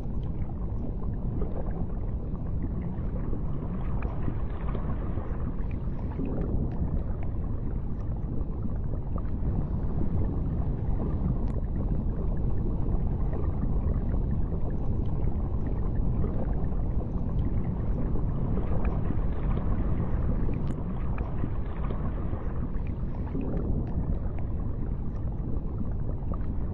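Underwater ambience: a steady low rumble of moving water with a few faint scattered clicks.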